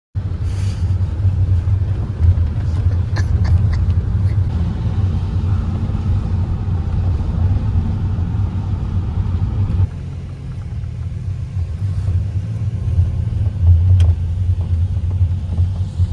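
Steady low rumble of a vehicle in motion, like road and engine noise in a car. It drops about ten seconds in, then builds again.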